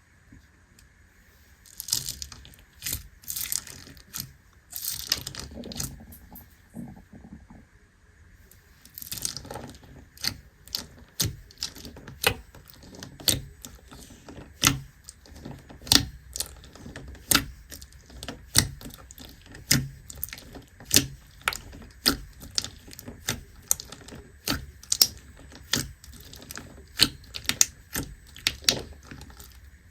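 Slime being squished and stretched by hand, then pressed so it makes sharp clicking pops about once a second.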